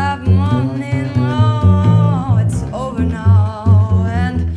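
A woman singing a blues melody, holding two long notes with vibrato, over a plucked double bass line.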